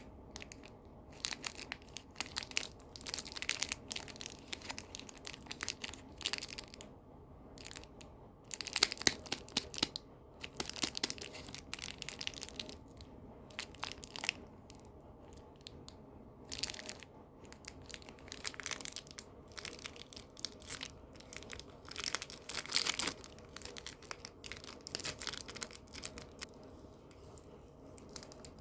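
Candy packaging being handled and opened: irregular crinkling and tearing of wrappers, in uneven bursts, loudest about nine to eleven seconds in and again a little past twenty seconds.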